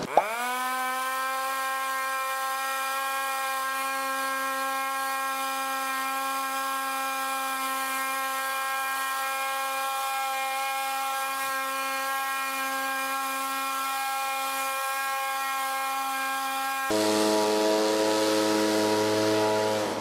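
26cc handheld engine leaf blower revving up to full throttle and running at a steady high-pitched whine. Near the end the note changes, dropping lower and growing louder.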